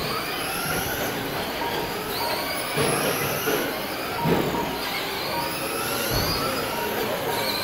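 Several Traxxas Slash RC short-course trucks racing on a carpet track: their electric motors whine, overlapping pitches rising and falling as the trucks speed up and slow for the corners, over a steady rush of drivetrain and tyre noise.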